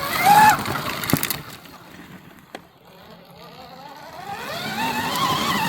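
A dirt bike engine revving on the flat track, its pitch rising briefly at the start and again in a longer climb over the last two seconds. A sharp knock comes about a second in.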